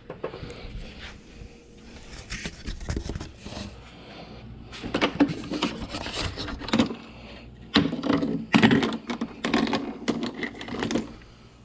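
Tools and small metal parts being handled: an irregular run of clicks, knocks, scrapes and rattles, with several louder clusters of clatter in the second half.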